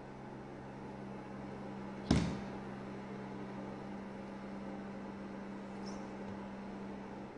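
A steady low drone note holds and stops shortly before the end. About two seconds in, one sharp knock rings out briefly over it.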